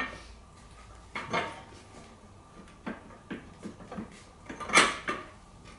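Metal hand tools and parts clinking and clanking in separate knocks at a Honda Today scooter's rear wheel during a rear tyre change, with one louder clank near the end.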